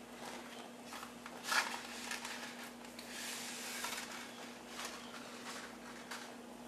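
Large stockpot of water boiling, with irregular bubbling and hissing spells, over a steady low hum. A sharp knock about a second and a half in is the loudest sound.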